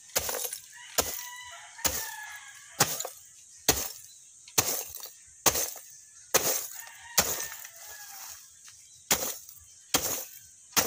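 Lumps of charcoal being pounded to crush them: a dozen or so sharp strikes at an even pace of about one a second. Chickens cluck faintly in the background.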